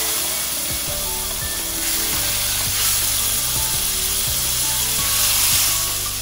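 Fish fillets frying in hot butter and olive oil in a stainless steel pan, a steady sizzle, with background music underneath.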